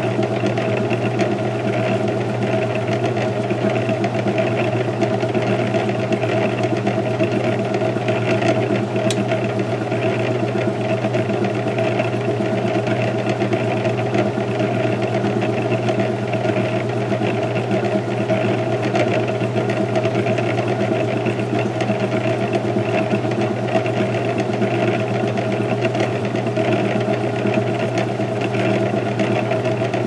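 Vintage Sears Kenmore belt-drive washing machine in its spin cycle: the motor, belt drive and spinning tub give a steady hum and whir. The owner suspects a transmission or wig-wag fault, with the agitator seeming to agitate while it spins.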